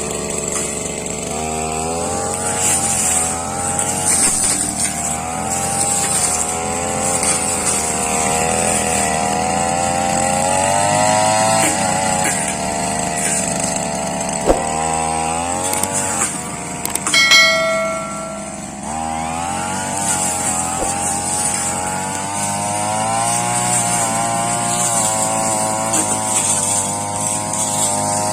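Brush cutter engine running under load, its pitch rising and falling as the blade cuts through grass and saplings. About two-thirds through the engine drops off for a moment, with a short sharp ring, then picks up again.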